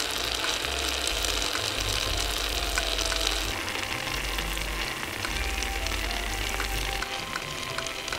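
Food sizzling in hot oil in a miniature pan, with small pops; the sizzle eases a little about halfway through. Soft background music plays underneath.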